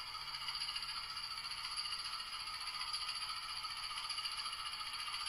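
Model Class 20 diesel locomotive running with its DCC sound decoder playing the diesel engine sound through a small speaker: a steady, fast mechanical rattle with almost no bass.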